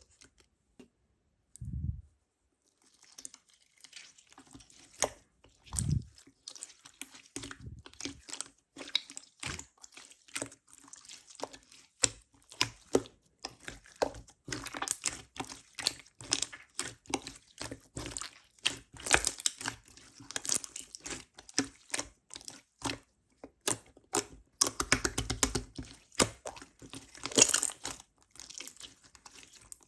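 Slime being pressed, poked and stretched by hand, giving dense crackling clicks and small pops, with a couple of soft thumps in the first few seconds.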